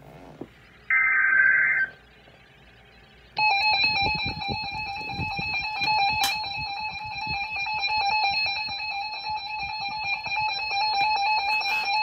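Emergency Alert System signal from a NOAA Weather Radio broadcast. About a second in there is a one-second burst of the SAME digital header, and after a short gap the harsh, steady attention tone starts at about three and a half seconds and holds.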